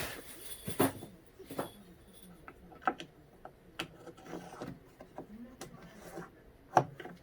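Scattered light knocks and clicks of wood and tools being handled, one sharper knock near the end, with a pigeon cooing faintly in the background.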